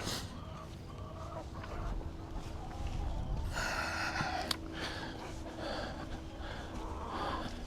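Chickens clucking softly in short, irregular calls over a low rumble and a faint steady hum.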